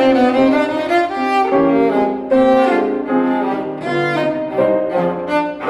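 Cello bowed in a melody of changing notes, with a Steinway grand piano accompanying.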